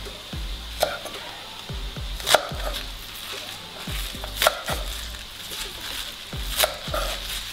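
Kitchen knife cutting green onions on a wooden chopping board, with a sharp knock of the blade on the board about every two seconds, over background music with a steady beat.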